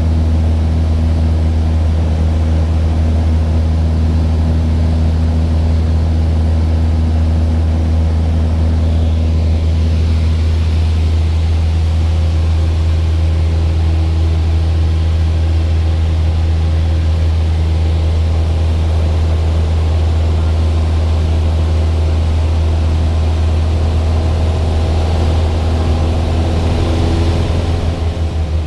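Aircraft engine running steadily, a constant low drone with a slight change in pitch near the end.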